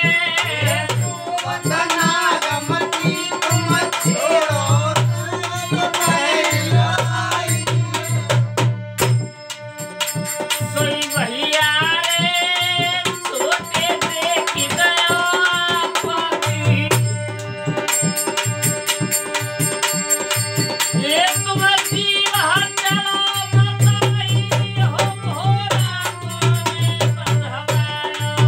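Rajasthani Holi folk song performed live: a man singing to a harmonium, with a dholak drum beating and hand clapping. The voice drops out briefly twice while harmonium and drum carry on.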